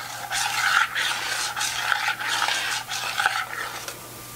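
Metal spoon scraping around the sides and bottom of a stainless steel saucepan of liquid custard mixture, in repeated irregular strokes, working loose flour from the edges of the pot.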